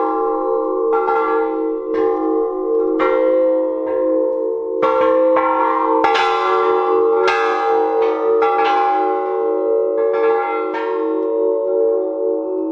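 Large hanging pipe chimes, tubular bells made from pipes, being struck irregularly about once a second. Each new strike rings out over the steady, overlapping hum of the earlier ones.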